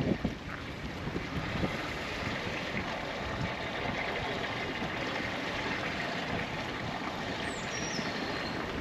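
Steady rumble and hiss of an off-road vehicle creeping slowly along a rough track, heard from inside, with a short falling whistle near the end.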